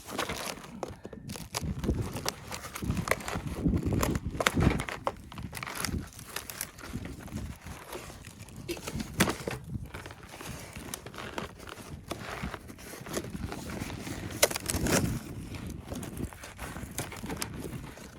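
Irregular rustling and crinkling with many short clicks and soft knocks, like gear or material being handled.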